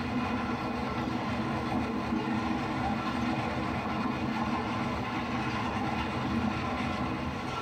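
HO scale model diesel locomotive running steadily along the track.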